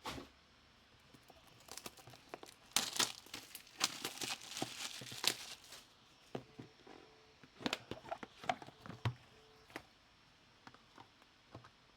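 Foil trading-card pack wrapper being torn open and crinkled: a dense stretch of crackling rustle for about three seconds in the middle, then scattered crinkles and clicks as the wrapper and cards are handled.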